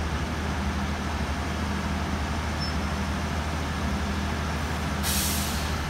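Heavy semi-trailer truck's diesel engine idling steadily while its compressor recharges brake air that ran out from braking on the downhill slope. About five seconds in there is a short, sudden hiss of air.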